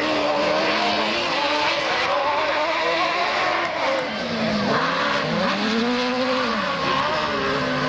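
Several autocross buggy engines racing on a dirt track, more than one heard at once, their pitch rising and falling as the drivers accelerate, lift and shift; around the middle one engine drops in pitch and climbs again.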